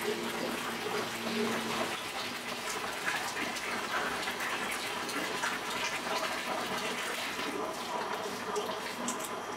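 Tap water running steadily into a large stainless-steel dough-mixer bowl holding flour and water.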